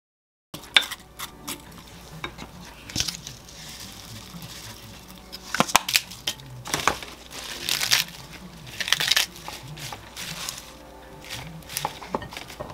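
Fresh lettuce leaves being torn by hand over a plate: crisp rustling tears in short bursts every second or so, with a few sharp clicks. The sound starts after a moment of silence.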